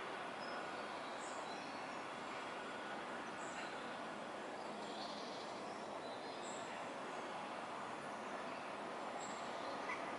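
Steady outdoor background noise, a low even hum, with a few faint, short, high bird chirps scattered through it.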